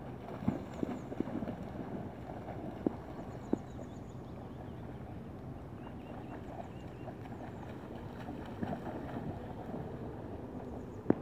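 Steady rush of river water running over rocks, with a few short splashes from a dog swimming and wading through it.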